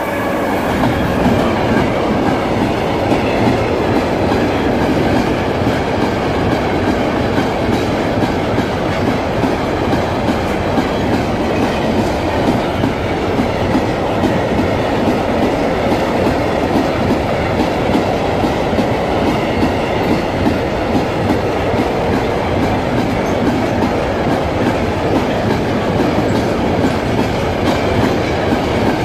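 Long freight train of covered sliding-wall wagons passing close by, its wheels clattering steadily over the rails, led by a class 37000 (Alstom Prima) electric locomotive that goes by right at the start.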